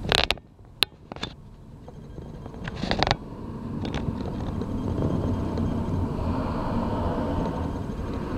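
Street traffic: a vehicle's low rumble building up and holding over the second half. Before it come a few short sharp clicks and a brief rushing noise about three seconds in.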